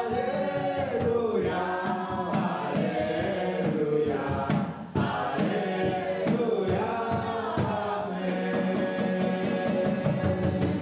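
A group of voices singing a chanted song over a steady percussive beat.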